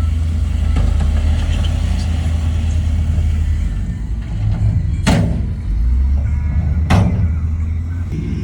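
Heavy diesel earthmoving machinery running with a deep, steady rumble, with two sharp metallic clanks: one about five seconds in and another two seconds later.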